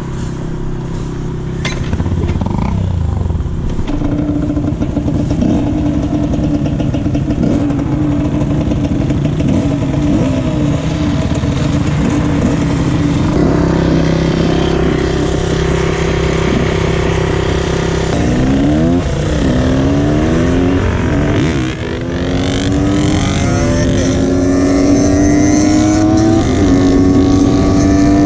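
Yamaha DT125X single-cylinder two-stroke motorcycle engines running steadily at first. From about eighteen seconds in they rev up, with the pitch climbing in several rising sweeps that each drop back as the bike pulls through the gears.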